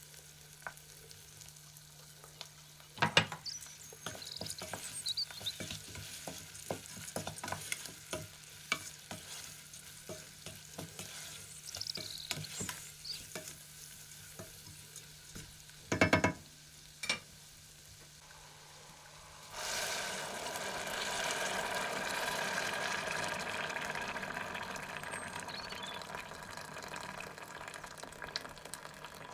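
A spoon stirring and clicking in a cooking pot, with two sharp knocks against it about 3 and 16 seconds in. About two-thirds of the way through, a loud steady sizzle of frying starts and holds.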